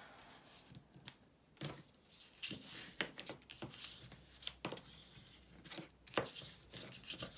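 Paper and cardstock being handled on a cutting mat: scattered light taps and rustles as an index card is slid into place and pressed down.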